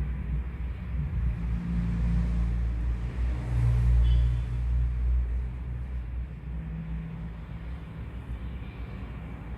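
A low rumble that swells about four seconds in and then eases off.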